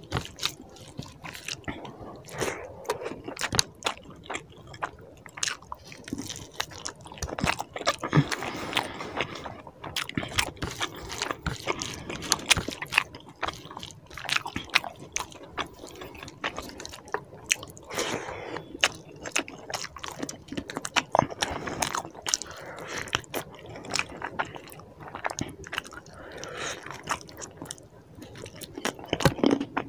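Close-miked mouth sounds of eating chicken curry and rice by hand: chewing and lip smacks with many sharp clicks, squelching as the rice and gravy are mixed by hand, and a bite into a chicken leg near the end.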